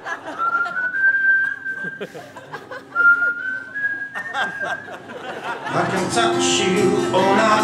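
A person whistling a short tune in two phrases, each stepping upward on clear high notes, over faint plucked guitar. Near the end, voices come in with guitar music.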